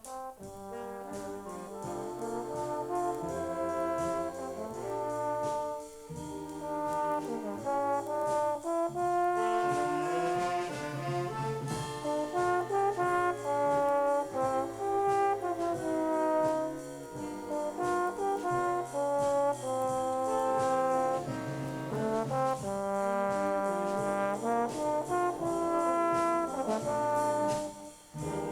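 Junior high school stage band's brass section, trombones and trumpets, playing sustained jazz chords on a 1969 LP recording, with a short break just before the end before the horns come back in.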